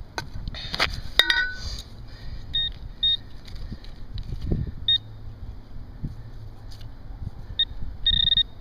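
Metal-detecting pinpointer probe giving short high beeps, then a longer beep near the end as it closes in on the buried coin. A few sharp knocks from the digging come first.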